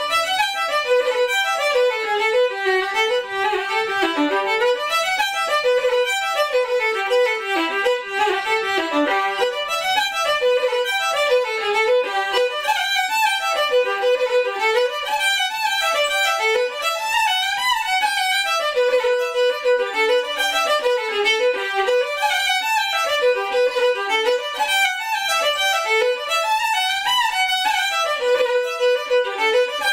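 Solo fiddle playing a traditional Irish dance tune, a steady stream of quick bowed notes.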